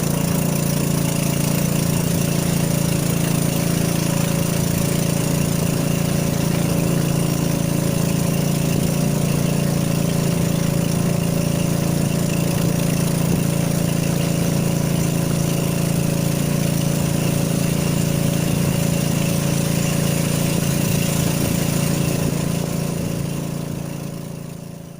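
A steady, unchanging engine-like hum at one constant pitch, fading out over the last few seconds.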